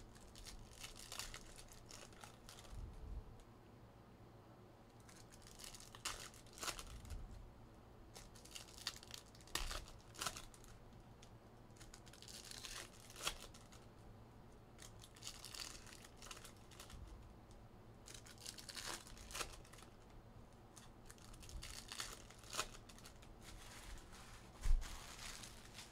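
Trading card packs being torn open and their wrappers crinkled, in short crackling bursts every few seconds. A single dull knock near the end is the loudest sound.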